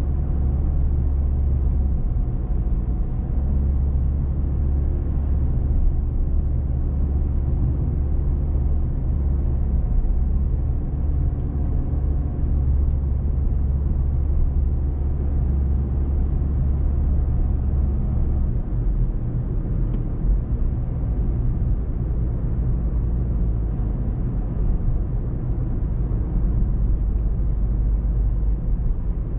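Car driving along a road: a steady low rumble of engine and tyres. The drone shifts slightly lower about two-thirds of the way through.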